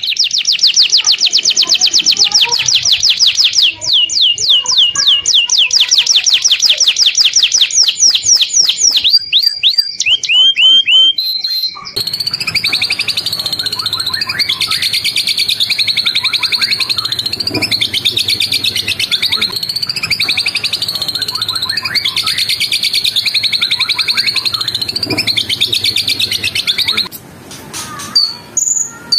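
Recorded songbirds singing: first a fast run of sharp, high repeated notes, then about twelve seconds in a cut to a different bird's continuous high trilling song, which gives way near the end to a few scattered notes.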